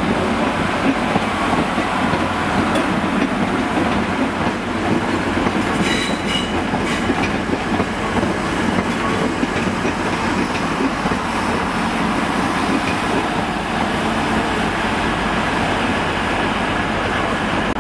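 A four-car Transport for Wales multiple-unit passenger train passing alongside the platform, giving a steady, even sound of its wheels running on the rails.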